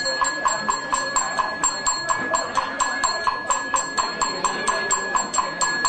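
Small ritual percussion with a bright metallic ring, struck in a fast, even rhythm of about four to five strokes a second, over a steady high tone.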